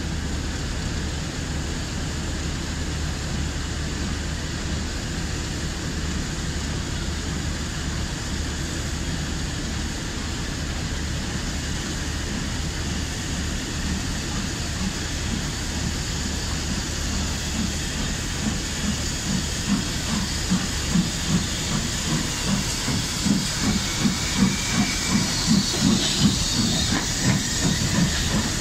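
LMS Jubilee class three-cylinder 4-6-0 steam locomotive 45690 Leander approaching and passing: a steady hiss at first, then from about two-thirds of the way through a rhythmic beat of exhaust chuffs, roughly two a second, growing louder as the engine comes alongside.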